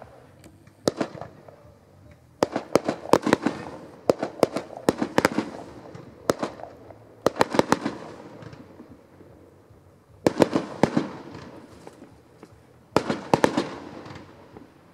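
Fireworks display: clusters of sharp bangs and crackling reports, a new group every second or two, with a quieter gap of about two seconds past the middle.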